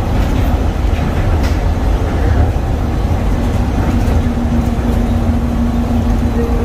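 Steady low rumble of a DFW Skylink automated people-mover train running along its guideway, heard from inside the car. About four seconds in, a steady humming tone joins the rumble.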